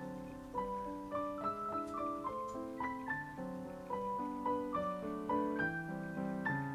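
Background piano music: a gentle melody of single notes and soft chords played at an even pace.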